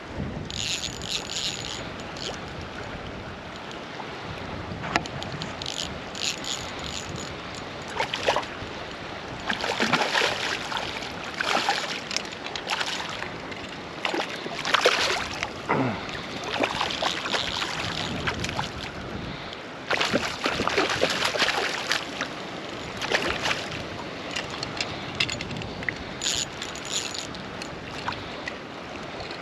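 River water running, with irregular splashes and sloshing that come and go in short bursts.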